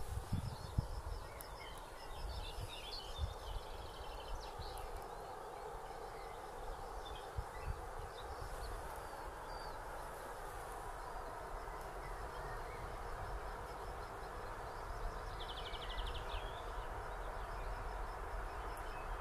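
Small birds chirping and trilling over a steady outdoor background noise, with a buzzy trill about three-quarters of the way through. A few low thumps come right at the start.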